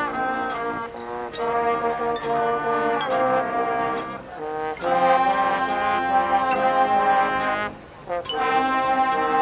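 High school marching band playing: the brass section holds loud chords over regular drum and cymbal hits, about one every two-thirds of a second, with a brief break near the end before the brass comes back in.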